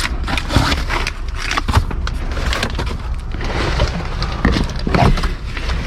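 Rummaging through trash in a dumpster: rustling and a steady run of knocks and clatters as discarded items are pushed and moved about, over a constant low rumble.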